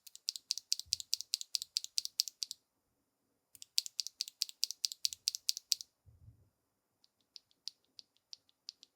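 Durock Black Lotus mechanical keyboard switch pressed rapidly over and over, about seven sharp clicks a second, in two runs of a couple of seconds each. A few fainter, slower clicks follow near the end.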